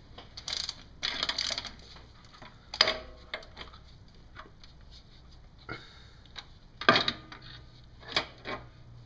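Ratchet wrench clicking in short bursts and metal tools clinking against the engine while the coolant temperature sensor is loosened, followed by a few separate sharp clinks.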